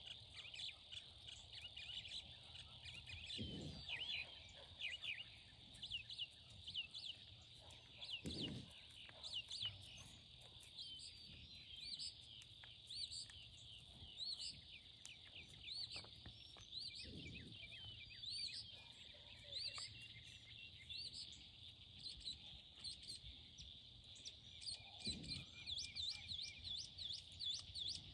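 Birds chirping and calling over a steady high insect hum in an open pasture, with short repeated chirps all the way through. Four brief low sounds come several seconds apart.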